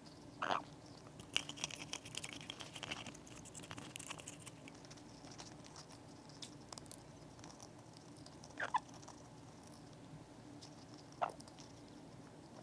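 Amazon parrot picking at a walnut with its beak: faint small crunches and clicks of shell, busiest in the first few seconds, with three brief squeaks along the way.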